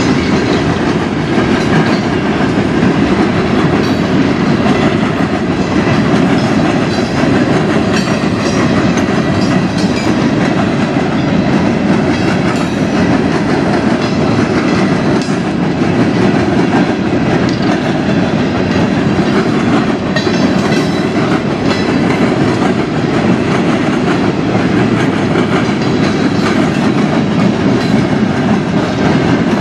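CSX freight train rolling past close by: a steady loud rumble of the freight cars' steel wheels on the rails, with scattered clicks from the wheels over the track.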